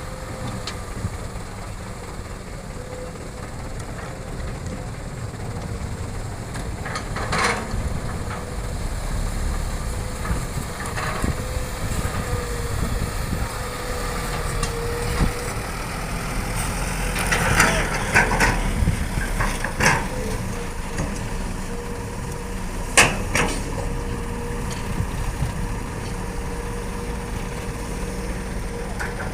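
Hitachi hydraulic excavator's diesel engine running steadily, with a thin steady hydraulic whine and several sharp knocks of the working machinery, the loudest about three-quarters of the way through.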